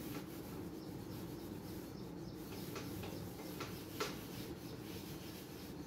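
Whiteboard duster wiping dry-erase marker off a whiteboard: faint rubbing with a few short squeaks, the clearest about four seconds in.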